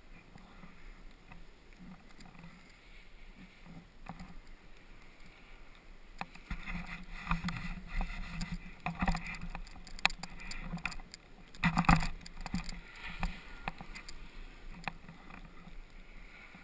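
Snowboard sliding and scraping over packed snow, picked up by a helmet camera, with a few sharp knocks. It gets louder from about six seconds in to about thirteen, then eases off.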